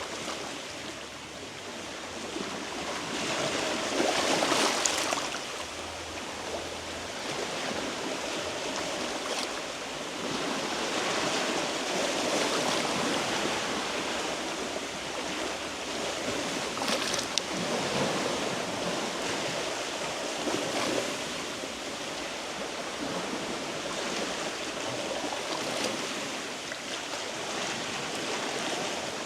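Sea waves washing against shoreline rocks in a continuous rush that swells and ebbs, the loudest surge about four seconds in.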